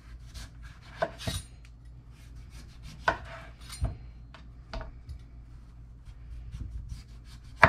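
Chef's knife slicing the skin off a turnip on a wooden cutting board: irregular sharp knocks of the blade meeting the board, about six in all, the loudest near the end, with faint scraping between.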